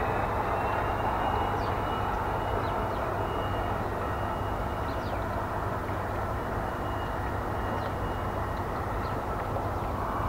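Diesel engine running sound from the onboard sound decoder of a Bachmann Class 66 model locomotive, played through the model's own speaker. It is a steady drone that fades slightly as the loco draws away.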